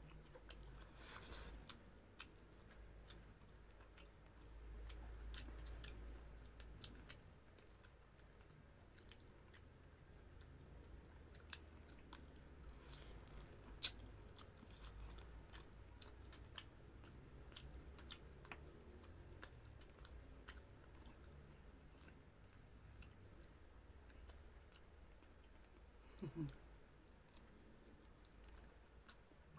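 Faint chewing and eating of grilled chicken inasal and rice, with scattered small clicks and crunches.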